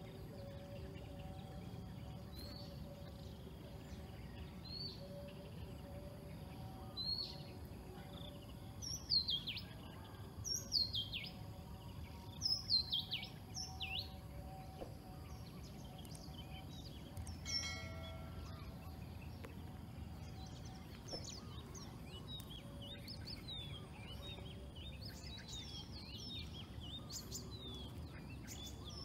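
Birds calling, with short high chirps that slide downward in pitch, loudest in a quick run of calls around the middle, over a steady low background rumble.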